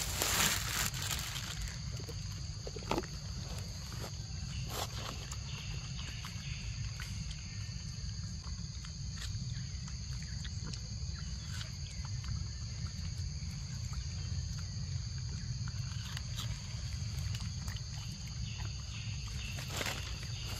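Tropical forest ambience: a steady high insect drone with a low rumble beneath, broken by scattered short clicks and rustles and a louder rustling burst in the first second.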